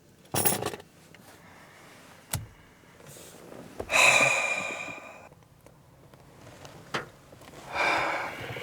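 A man's nervous breathing. There is a sharp breath about half a second in, a long heavy sigh about four seconds in that fades out over a second, and another drawn breath near the end, with a few light clicks between them.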